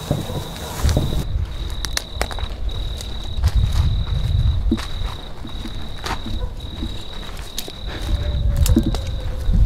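A cricket trilling on one steady high pitch in long stretches with short breaks. Over it come footsteps and the crackle of dry weeds being pushed through, and a low rumble that is the loudest part.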